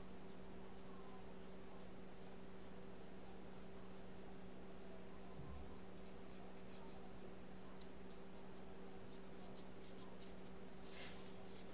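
Paintbrush loaded with gouache dabbing and stroking on paper in short quick strokes, several a second, with one longer, louder stroke near the end. A steady low hum runs underneath.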